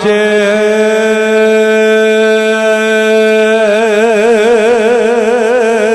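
A man singing one long held note of Punjabi devotional verse. About three and a half seconds in, the note breaks into a quick, wavering vibrato.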